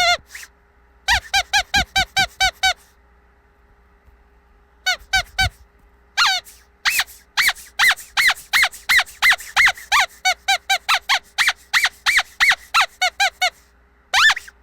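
Squeaky dog toy squeezed repeatedly, giving short high squeaks in rapid runs of several a second, with pauses between runs and one more squeak near the end.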